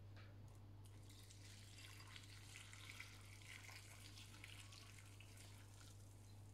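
Water poured in a thin stream into a bowl of dried textured soy chunks, faintly splashing and trickling over them as they are rinsed, starting about a second in and fading near the end. A steady low hum runs underneath.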